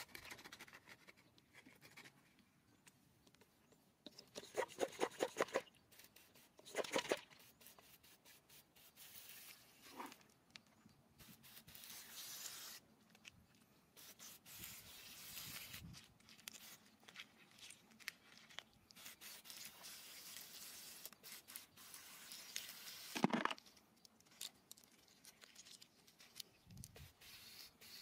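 Scattered rubbing, scraping and tapping handling sounds, with a quick rattling run of ticks about five seconds in.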